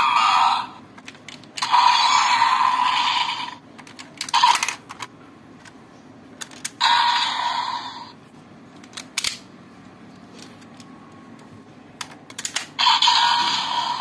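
Hard plastic toy parts being handled and fitted into a DX toy buckle: scattered sharp clicks and snaps, with four longer stretches of hissy, rustling noise.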